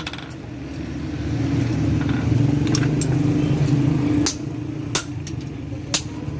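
A low motor drone swells, holds for about three seconds, then drops off abruptly, with scattered sharp taps throughout.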